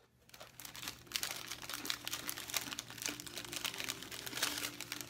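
Packaging crinkling and crackling as it is handled close to the microphone, dense irregular crackles over a faint steady hum.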